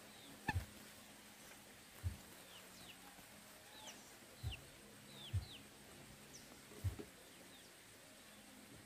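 Small birds chirping with short falling notes, over about five dull low thumps spaced a second or two apart, which are the loudest sounds.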